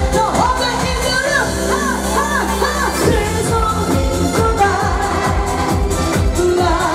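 Live pop song with a woman singing into a microphone: a wavering, held melody over an amplified band track with a steady beat. The deep beat drops out for a moment in the middle, then comes back in.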